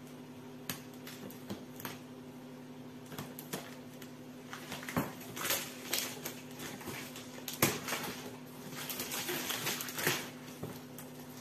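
Scissors snipping through the packing tape on a cardboard appliance box, a few sharp clicks. Then the cardboard flaps are pulled open and the plastic-wrapped air fryer is lifted out, with crackly rustling of cardboard and plastic and a knock or two near the middle.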